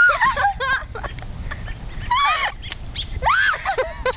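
A bird squawking loudly in three harsh bouts of arching calls: near the start, about two seconds in, and a little past three seconds.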